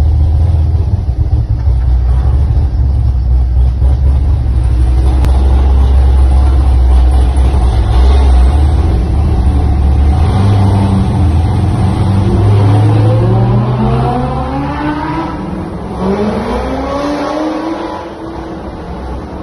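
Sports-car engines in a road tunnel, heard from inside the Corvette C6 Z06 as it follows a Lamborghini Huracán. The Corvette's 7.0-litre V8 and the Huracán's V10 echo off the tunnel walls. A deep steady drone gives way in the second half to two rising revs as the cars accelerate up through the gears, and the sound eases off near the end.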